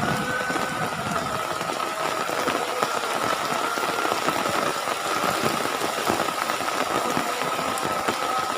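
Heavy rain pouring down, a dense continuous patter of drops striking hard surfaces. A steady high-pitched hum runs underneath.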